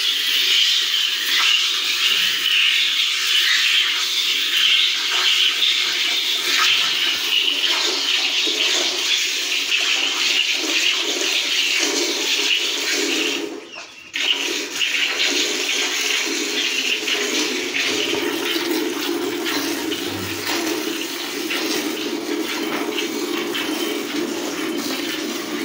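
Milk squirting in quick jets from a Holstein-Friesian cow's teats into a steel bucket during hand milking: a steady rushing sound. It is higher in the first half and lower in the second, with a short break about halfway through.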